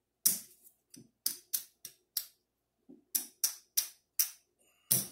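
Casino chips clicking against one another as they are picked up and stacked by hand, about a dozen sharp clicks at an uneven pace.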